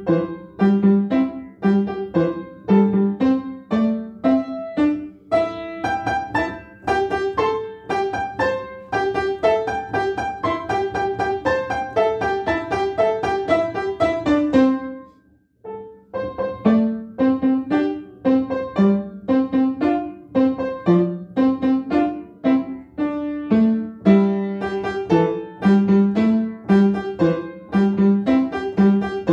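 Upright acoustic piano playing a lively short piece of separate struck notes. The playing stops for about a second halfway through, then starts again.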